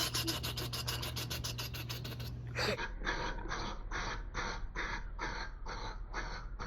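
A person making a vocal sound effect with the mouth: a fast run of short scratchy pulses, about ten a second. After about two and a half seconds it changes to slower breathy pulses, about two a second.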